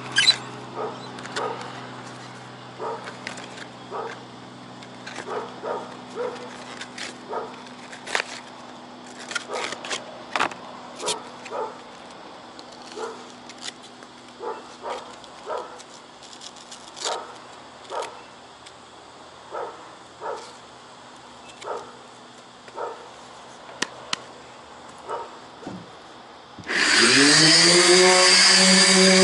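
Irregular light clicks and knocks, about one a second, from handling a random orbital sander while its sanding disc is changed. Near the end the electric sander switches on, winds up over about a second and runs steadily at speed.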